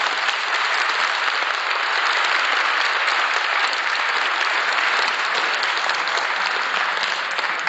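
Audience applauding steadily in a hall, a dense even clapping without pause.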